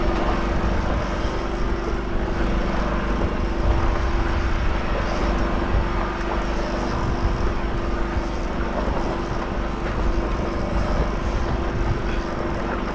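Engine running steadily on a fishing boat at sea: a constant low drone with a steady hum.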